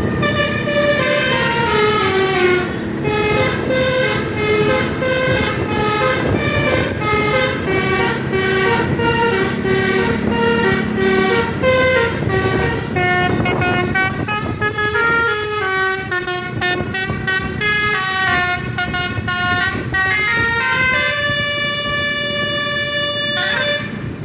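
Basuri 'telolet' musical air horn on a bus playing a tune: several horn tones at once stepping up and down in pitch in a quick run of notes, ending in one long held chord that cuts off near the end.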